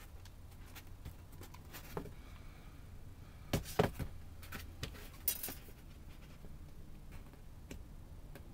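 Black-painted board diorama pieces being handled and shifted on a tabletop: a few light knocks and scrapes, the loudest a little over three and a half seconds in, over a low steady hum.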